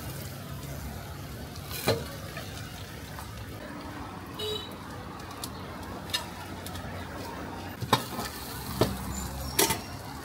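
Jiang xiang bing flatbread cooking on a hot griddle with a steady sizzle over a low hum, broken by about five sharp knocks, most of them in the second half.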